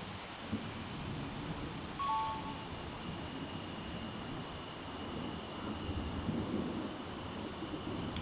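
Night insect chorus of crickets: a steady high trill with intermittent higher buzzing pulses, over a low rumbling background noise. A brief two-note chirp comes about two seconds in.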